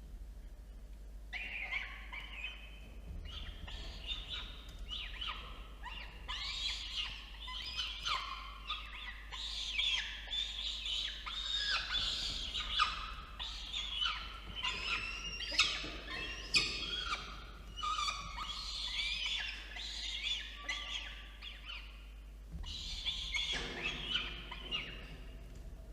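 Peregrine falcon chicks calling over and over in short, high squealing cries, the begging calls of eyases being fed at the nest box. A steady low hum sits underneath.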